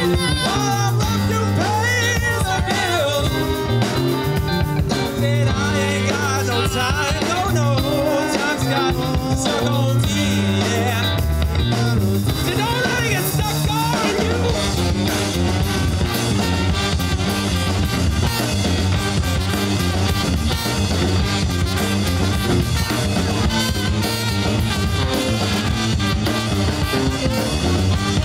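Live funk band playing: a horn section of trombone, saxophone and trumpet over drum kit, bass guitar and keyboard, with singing.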